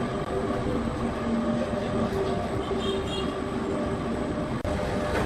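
Sawmill machinery running steadily: a constant mechanical drone with several held tones. It breaks off for an instant about four and a half seconds in, then carries on.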